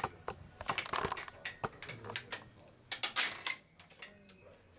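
Light clicks and taps of a spacer being handled and fitted into the bottom rail of an aluminum deck railing between the balusters, with a denser clatter about three seconds in.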